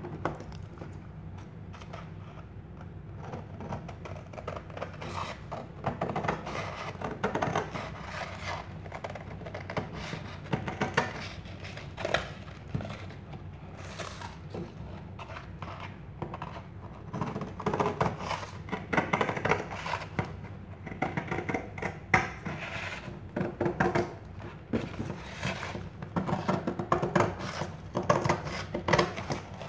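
Scissors cutting through a stiff sheet of aluminium oxide abrasive paper, with the paper crackling and rustling as it is handled and smoothed down, in irregular bursts of snips and scrapes over a steady low hum.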